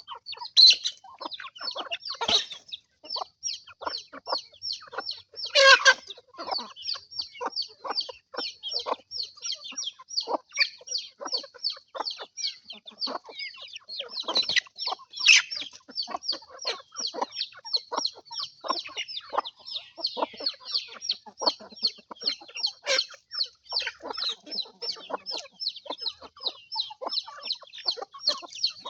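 Chickens clucking: a steady run of short, high calls, several a second. A few louder calls stand out, the loudest about six seconds in and again about fifteen seconds in.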